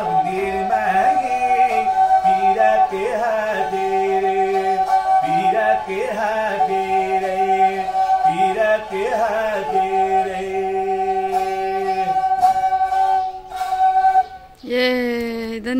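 Nepali sarangi, a small bowed folk fiddle, played solo: long held bowed notes joined by short sliding runs, in a repeating melody. A new, louder phrase starts near the end.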